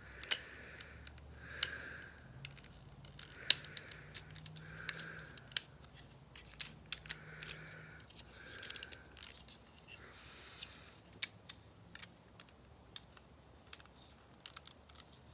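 Hard plastic parts of a Transformers action figure being handled and moved through its transformation: scattered sharp clicks of joints and pegs, with short rubbing sounds of plastic sliding on plastic every second or two.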